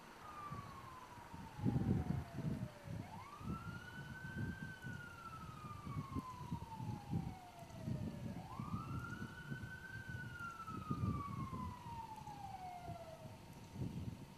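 Police siren on a wail setting, each cycle a quick rise and a long slow fall, repeating about every five and a half seconds and stopping shortly before the end. Underneath runs an uneven low rumble of the approaching police vehicles and motorcycles.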